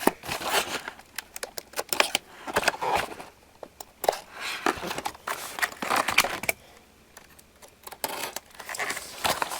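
Toy packaging being opened by hand: irregular crinkling, rustling and tearing with scattered sharp clicks, pausing briefly partway through.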